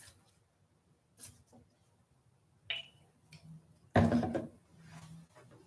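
A plastic drink bottle being handled on a desk: a few sharp clicks and taps, then a loud knock about four seconds in.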